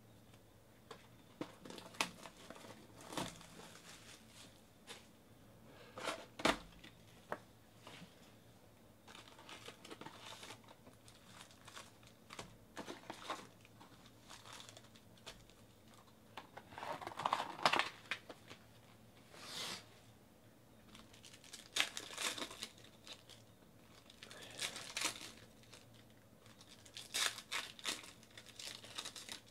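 Trading-card packs being torn open by hand, their wrappers crinkling in irregular bursts, with small clicks and taps from handling the cards.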